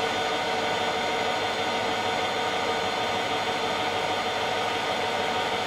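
Schröder Type 134 plate rolling machine running steadily: an even mechanical hum with several steady tones over a light hiss.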